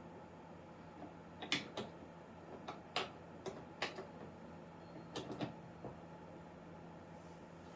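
Irregular light clicks and taps of hard crossbow parts being handled, about nine in the first six seconds, over a low steady hum.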